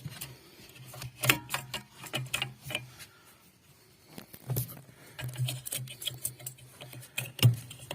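Scattered clicks and knocks of plastic parts and fittings being handled as a car's control unit is pushed back into its mounting.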